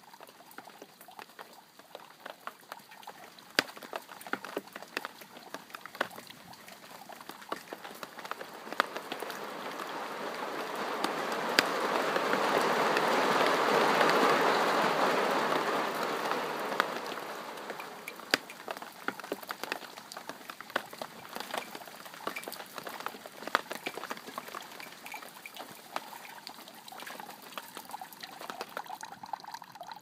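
Rain falling and dripping, with many separate drops ticking sharply on hard surfaces. Partway through, a rushing noise swells up, peaks and fades back to scattered drips.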